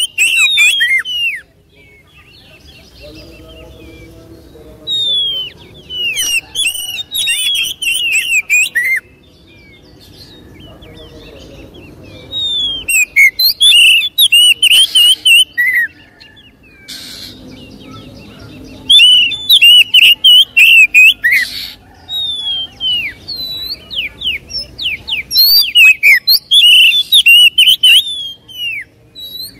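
Caged Oriental magpie-robin singing in loud bouts of rapid chirps and whistled notes, about five phrases separated by short pauses.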